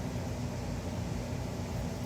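Steady low mechanical hum with a constant hiss, like a fan or other machine running.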